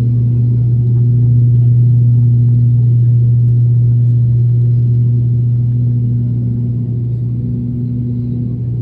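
ATR turboprop airliner's engines and propellers droning steadily in the passenger cabin during descent: a loud low hum with a fainter, higher tone above it, easing slightly in level about two-thirds of the way through.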